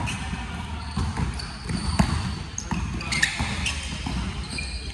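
Basketball game play in a large gym: the ball bouncing on the court and sneakers squeaking on the floor, with sharp knocks echoing in the hall.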